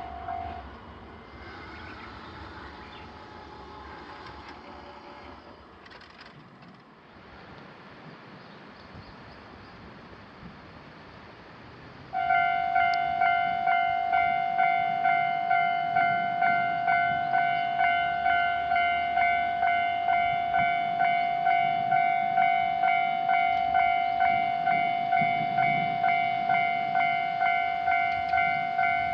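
A Japanese railway level-crossing alarm starts ringing about 12 seconds in: an electronic bell dinging steadily about twice a second. Before that there is quieter background, and a ringing tone cuts off right at the start.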